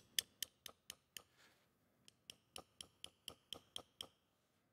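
Steel mallet gently tapping an osteotome in the olecranon, about four faint taps a second with a short pause between 1 and 2 seconds in, finishing an olecranon osteotomy. The taps are listened to for a change in tone that signals the bone is about to crack apart.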